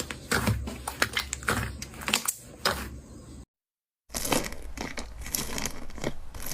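Slime being squeezed and poked by hand, making quick sticky clicks and pops; the sound cuts out completely for about half a second past the middle, then resumes as denser crinkling crackles.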